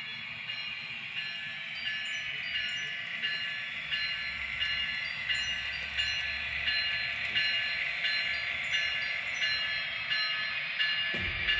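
Sound-decoder bell of an N-scale SD70ACe model diesel locomotive ringing steadily, about one and a half dings a second, over the decoder's running-engine sound. A low tone comes in near the end.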